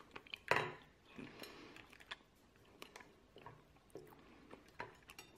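Faint scattered clicks and rustles of hand work: a soft silicone cake-pop mould being flexed and peeled off chocolate pralines, and a plastic piping bag being squeezed. The loudest click comes about half a second in.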